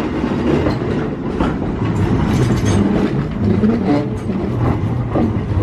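Vintage Los Angeles Railway electric streetcar rolling past close by, its steel wheels running on the rails with a steady low rumble and frequent clicks.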